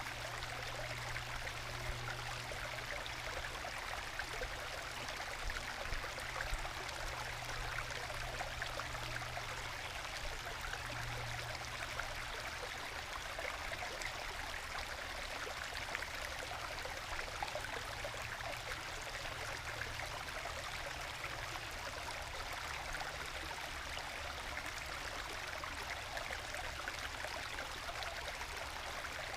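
A small forest stream flowing over little waterfalls in bedrock into plunge pools, babbling and gurgling steadily, with a low rumble underneath.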